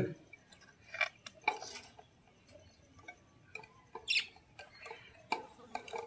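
Scattered small clicks and rattles of a wire birdcage being handled as a nest box is fastened tight inside it.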